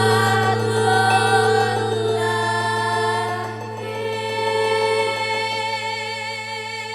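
Live music from a traditional-style Acehnese ensemble: a steady low drone under held melody notes with vibrato, which may be sung. The music grows quieter toward the end.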